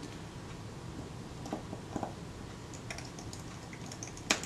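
Small screwdriver clicking and ticking against the countersunk screws as they are driven into the metal base of a Kodak Retina IIIc camera body. The clicks are faint and scattered, with a sharper click about four seconds in.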